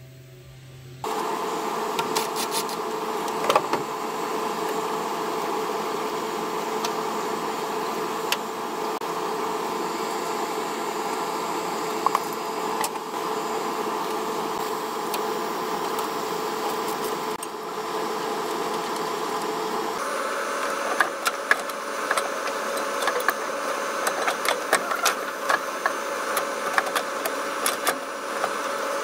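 A steady machine hum with a few faint tones. Over it come scattered clicks and rattles of parts and tools being handled in the engine bay, and these get busier about twenty seconds in.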